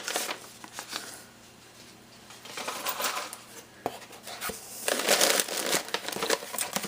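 Packaging rustling and crinkling in handling, in several stretches with a couple of small clicks.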